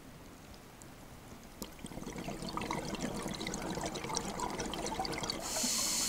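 Underwater ambience: bubbling with a scatter of small clicks and crackles, growing louder from about a second and a half in. Near the end a steady high hiss comes in.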